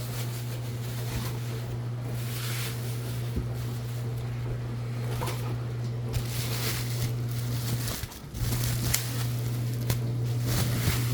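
A steady low hum with faint clicks and rustles of a knife set's packaging being handled. The hum drops out briefly about eight seconds in.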